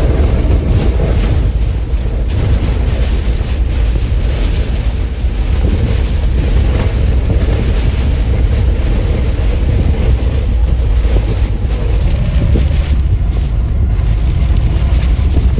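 Hurricane-force eyewall wind blowing loud and steady, buffeting the microphone with a deep, rumbling low end that rises and falls in gusts.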